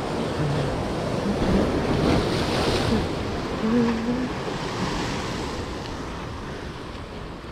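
Ocean surf breaking and washing over the rocks of a jetty, a steady rushing that eases a little towards the end, with wind buffeting the microphone.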